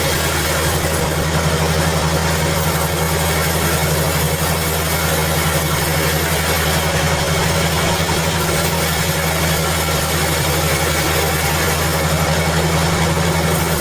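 Sawmill machinery running steadily: a constant low hum with an even hiss above it.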